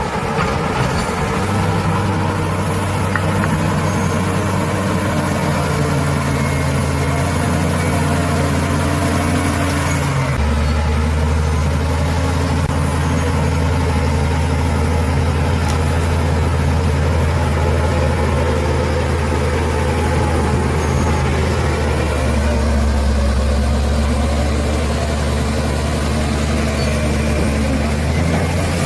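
Bulldozer's heavy diesel engine running steadily while working. About ten seconds in its note drops abruptly to a deeper, stronger drone.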